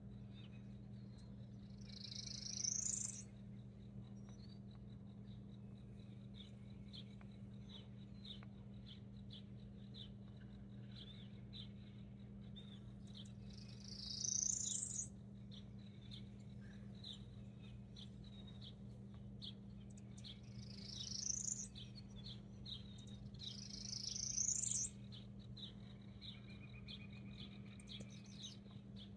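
Small songbirds calling: a run of quick, high, short chips, broken four times by a louder rising call about a second long, over a steady low hum.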